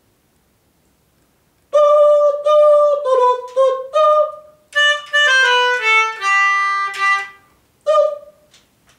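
Melodica played through its blow tube: a short melody of separate held notes, mostly stepping downward and ending on a longer low note about seven seconds in, with one short higher note near the end.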